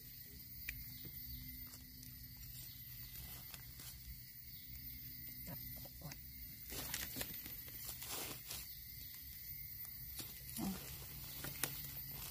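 Dry bamboo and leaf litter rustling and clicking as it is handled and stepped through, busiest about seven to eight seconds in, over a steady faint forest hiss with a thin high tone. A brief low sound comes about ten seconds in and a sharp click near the end.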